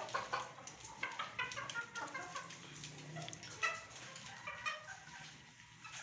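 Ornamental birds calling in a run of short, quick notes that thin out and grow quieter toward the end.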